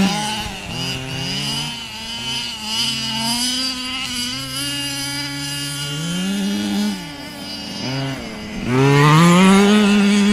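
HPI Baja 5SC, a 1/5-scale petrol RC truck, its small two-stroke engine revving up and dropping back again and again as the truck slides around on snow. It is loudest from about nine seconds in, when it passes close.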